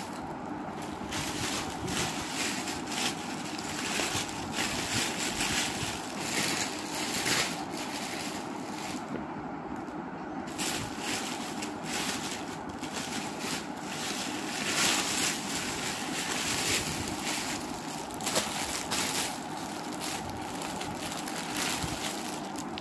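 Irregular rustling and handling noises over a steady background hiss, as things are searched through and picked up.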